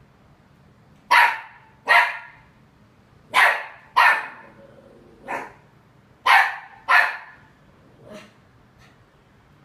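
West Highland white terrier puppy barking in short, sharp, high yaps, mostly in quick pairs, with a few softer barks between them and near the end. This is wary barking at an empty plastic bottle on the floor.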